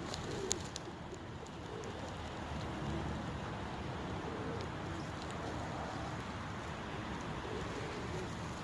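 Domestic pigeons cooing, low coos repeating over a steady background, with one sharp click about half a second in.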